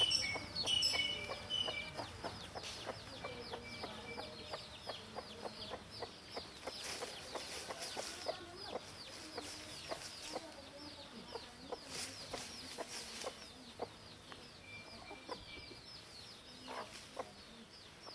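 A hen clucking softly while her chicks peep, a steady stream of short, high, falling cheeps.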